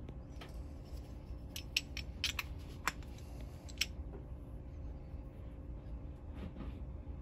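Small sharp metal clicks from handling a sewing-machine bobbin and its bobbin case while loading new thread, a handful of them bunched between about one and a half and four seconds in, over a low steady hum.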